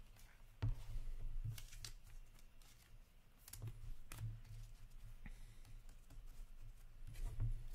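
A stack of hockey trading cards being handled by hand: cards flicking and sliding against each other, with scattered light ticks and soft taps as the stack is squared on the table.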